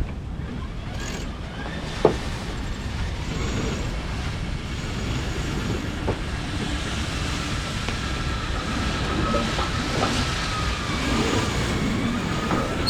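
Electric sail-furling motor running with a faint, steady whine over the rush of wind and water, and one sharp click about two seconds in.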